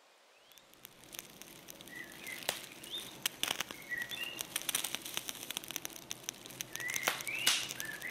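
Short bird chirps, several scattered one or two at a time, over dense crackling and clicking that starts about half a second in.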